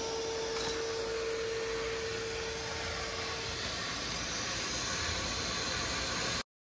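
Heavy-duty shop vac running steadily, its suction pulling a power wire through an aluminium bimini frame tube. A steady tone rides over the rushing noise and stops about three and a half seconds in. All sound cuts off abruptly near the end.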